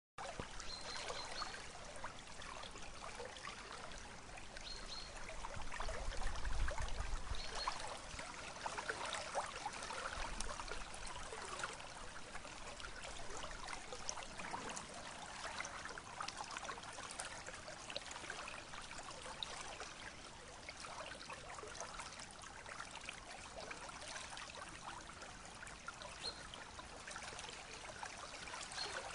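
Steady trickling and rushing of flowing river water, with a brief low rumble about six seconds in.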